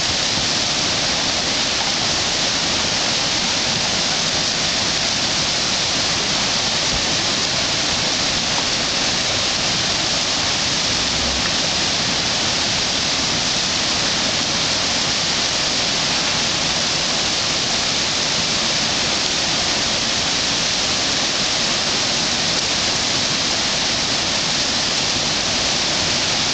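Whitewater rapid rushing: a steady, even hiss of churning river water.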